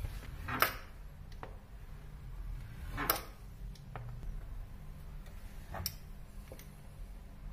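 Sharp taps and knocks of a fluted pastry wheel and hands on a wooden pastry board as rolled dough is cut into strips. Three louder knocks come about two and a half seconds apart, with fainter clicks between them, over a low steady hum.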